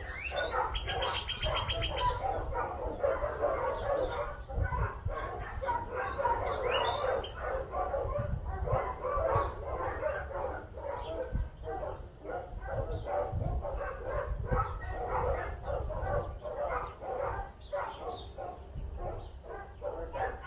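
Many dogs barking and yipping over one another in a steady, overlapping chorus, with a few bird chirps above it.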